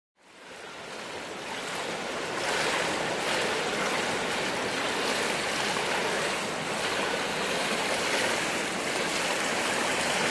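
Pool water splashing and churning as a swimmer kicks breaststroke legs while lying on her back, fading in over the first couple of seconds and then steady.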